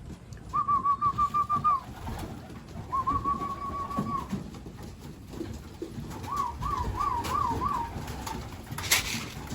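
Pigeons in the loft: three short warbling calls over low background cooing, and a sharp clatter near the end.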